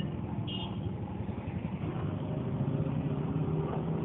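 Steady traffic and engine rumble from passing road vehicles, with a brief vehicle horn toot about half a second in.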